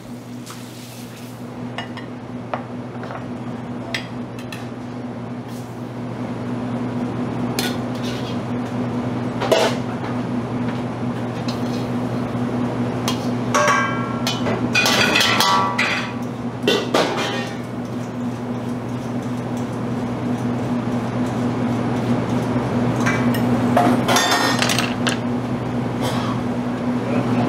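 Metal ladle clinking and scraping against a wok as the stir-fry is tipped out onto a plate, with scattered sharp clicks and a ringing cluster of clinks midway. A steady low hum runs underneath.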